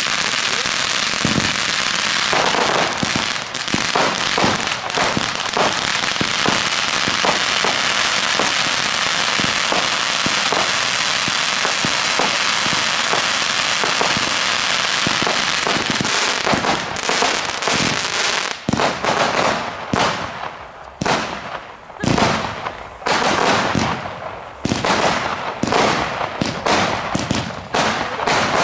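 Blackboxx Mega Vulkan crackling fountain spraying with a dense, continuous hiss full of crackles. In the second half a Comet Power Beamer 64-shot cake takes over, firing a rapid string of shots, each followed by a crackling burst.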